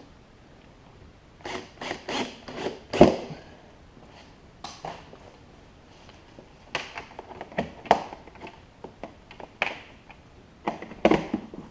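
Handling clatter on a hard plastic cooler lid: a run of sharp clicks and knocks, the loudest thump about three seconds in. Near the end come snap fasteners being pressed onto snap studs screwed into the lid.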